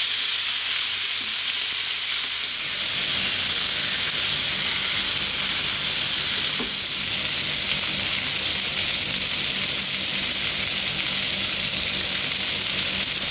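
Lamb chops frying in olive oil on a flat griddle pan, a steady sizzle throughout.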